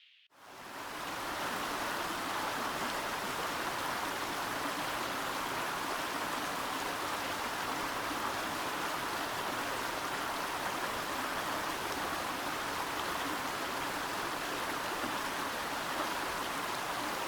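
Steady, even rushing noise like running water, coming in within the first second and holding a constant level.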